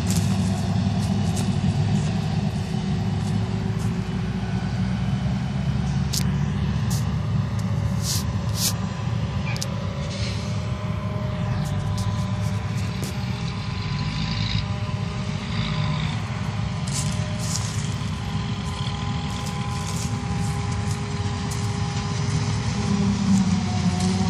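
Forage harvester and silage truck running steadily in the field while the harvester chops corn for silage: a continuous low engine drone with a faint machine whine that slowly shifts in pitch, and a few scattered clicks.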